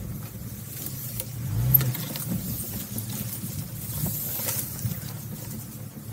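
Jeep Cherokee XJ engine running at low revs as the vehicle rolls slowly off-road, with a brief rise in revs about a second and a half in. A few faint clicks sound over it.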